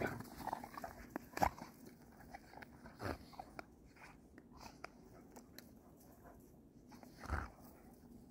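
Two dogs play-fighting in snow: paws scuffling and crunching in the snow, with scattered soft snaps of jaws and a few louder scuffles.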